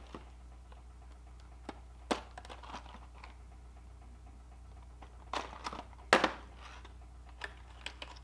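Plastic bait packaging handled and pried open: scattered clicks and crackles, the loudest a few sharp snaps about two, five and six seconds in, over a steady low hum.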